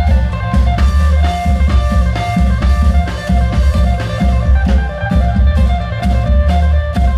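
Isan klong yao long-drum band playing loud amplified music: a steady, heavy drum beat with a melody of held notes over it.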